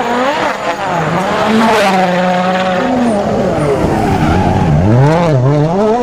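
Toyota Yaris WRC rally car's turbocharged four-cylinder engine revving hard. Its pitch climbs and drops several times through gear changes, with quicker dips and climbs in the second half.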